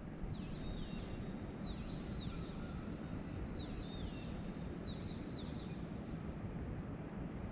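A bird calling repeatedly in short runs of high notes that arch up and fall away, stopping a little under six seconds in, over a steady low rumble.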